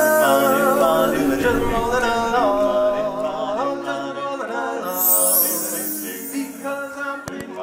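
Barbershop quartet of four men singing a cappella in close harmony, holding chords and sliding up into new ones.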